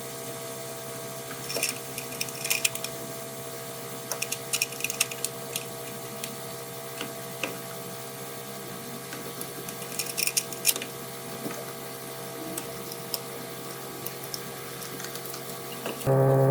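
Scattered light clicks and taps in short clusters, like hand tools and plastic parts being handled, over a steady electrical hum.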